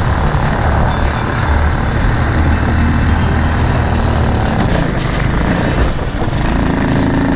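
An old go-kart's small engine running steadily under way, with its pitch shifting a little near the end, mixed with heavy wind noise on the microphone.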